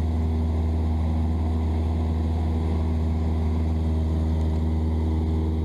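Cessna 172's piston engine and propeller running at a steady power setting in flight, heard inside the cabin as an even, unchanging low drone.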